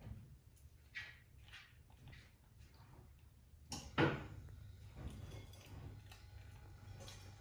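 A young macaque eating crisp rolled wafer snacks: scattered crunches and small knocks of handling, the loudest about four seconds in.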